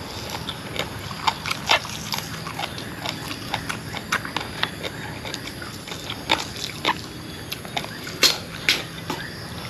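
Close-up eating sounds: chewing and lip smacking on grilled pork rib meat, with irregular sharp smacks several times a second.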